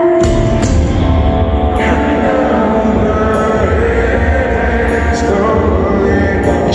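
Live heavy rock band playing at full volume in an arena: the full band with heavy low end comes in right at the start, with drums and repeated cymbal crashes driving on.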